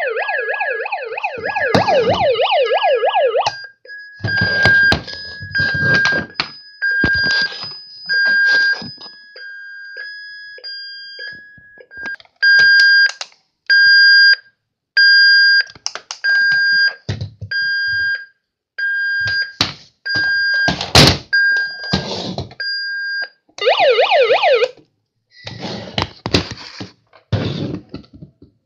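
Battery-powered toy truck's electronic sound effects: a fast-warbling siren, then a long run of evenly spaced electronic beeps, a little quicker than one a second, and a short burst of siren again near the end. Clicks and knocks from the toys being handled and their buttons pressed.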